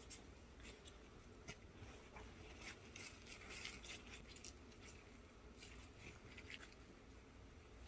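Faint handling sounds near room tone: scattered light clicks and taps, with a short rustle or scrape about three seconds in.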